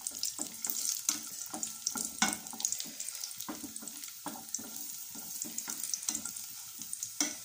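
Raisins, cashews and sliced almonds sizzling steadily as they fry in ghee in a nonstick kadai, while a silicone spatula stirs them in short scraping strokes, about two or three a second, with one sharper stroke near the end.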